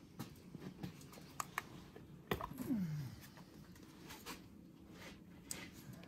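Faint clicks and rustling from gloved hands fitting spark plug wires onto the engine, with a sharper click a little over two seconds in, followed by a short sound that falls in pitch.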